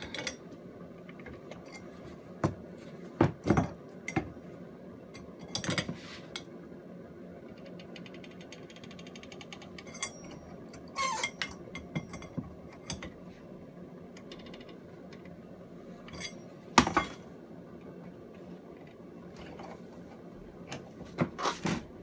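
Scattered metal-on-metal clinks and knocks from a small puller and a steel bar on a washing machine motor's heat-fitted pulley, irregularly spaced, the loudest about 17 seconds in and a quick cluster near the end.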